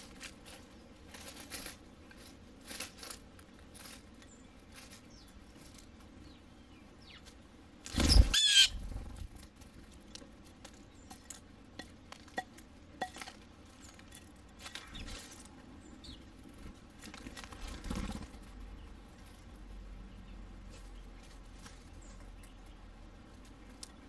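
Small wild birds at a ground seed feeder: scattered quick pecks and rustles in dry leaves, short flurries of wingbeats as birds land and leave, the loudest about eight seconds in, and brief calls.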